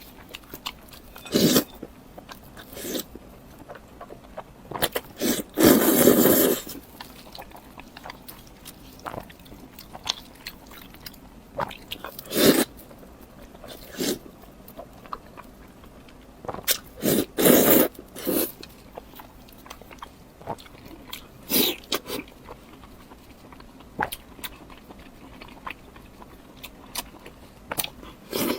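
Close-miked eating: a person biting and chewing food, with irregular wet mouth clicks and smacks and a few longer, louder bursts, around 6 seconds and 17 seconds in.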